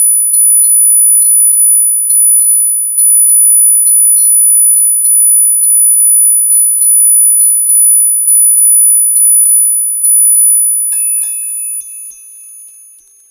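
Ultra-high-pitched tinnitus-relief tones: a piercing, loud ringing tone re-struck about twice a second like a chime. About eleven seconds in, it jumps to an even higher tone.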